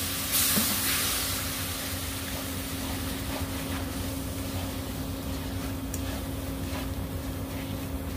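Curry spice paste of shallots, garlic and ginger sizzling in a wok with a little water just added: a loud hiss near the start that settles into a steady sizzle. A steady low hum runs underneath.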